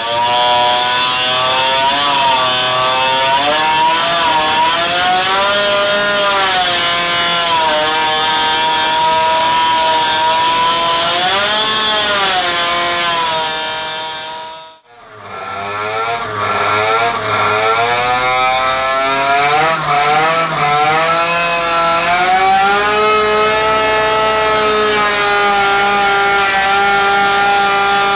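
Turbocharged 50cc Minarelli AM6 two-stroke engine running on a dyno test, its revs rising and falling again and again. The sound drops out briefly about halfway through, then the revving picks up again and settles to a steady high speed near the end.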